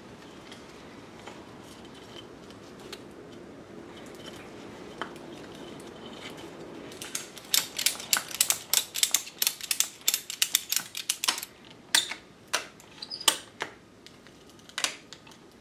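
Small tools and parts being handled on a workbench: soft rustling at first, then from about halfway a quick run of sharp clicks and light taps that thins out near the end.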